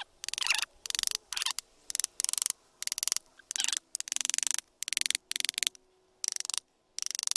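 About a dozen short scratchy strokes of a hand tool working the wood of a tree trunk, each stroke a quick run of fine clicks lasting under half a second, with brief pauses between them.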